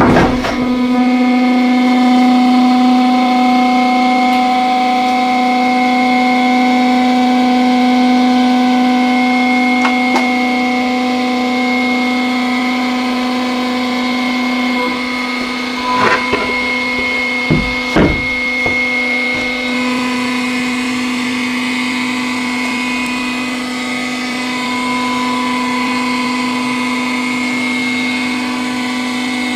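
Hydraulic press pump running with a steady, loud hum. A few sharp knocks come about halfway through, the last two close together.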